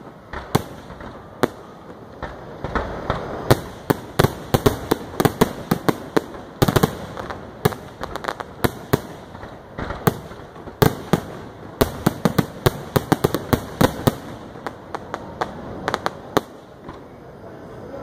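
Aerial firework shells bursting in a rapid string of sharp bangs, a few at first, then many in quick succession through the middle, thinning to scattered bangs near the end.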